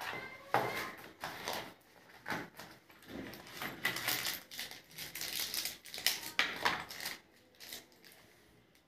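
Clear plastic packaging bags crinkling and rustling in the hands, with irregular clicks and taps, as the bagged USB cable and small parts come out of a pen tablet's box. The handling is busiest in the middle and dies away near the end.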